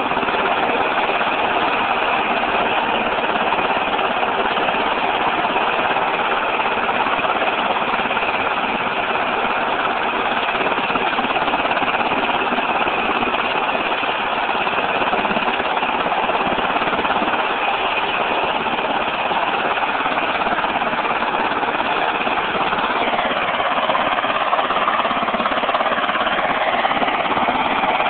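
Sikorsky UH-60 Black Hawk helicopter running on the ground, its turbines and rotor making a loud, steady, rapid mechanical drone.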